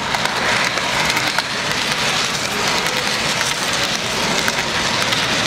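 Model train cars rolling past on their track: a steady clattering rush of metal wheels on rail, with many small rapid clicks.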